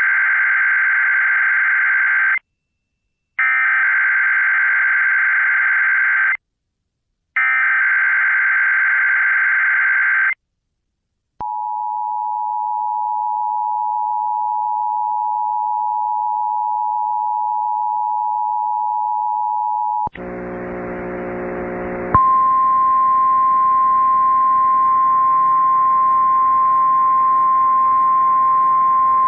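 Emergency Alert System test signals: three screeching digital SAME header bursts, each about three seconds long with a second's pause between them, then the steady two-tone EAS attention signal for about eight seconds. After a short stretch of noise, a single steady high tone with hiss under it begins, carried in from the relayed National Weather Service audio.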